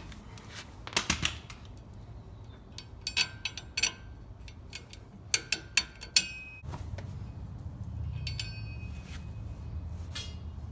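Scattered light metallic clicks and clinks as a lug nut and steel washers are spun off and lifted from a newly pressed-in wheel stud on a truck's hub flange. A low steady hum comes in about two-thirds of the way through.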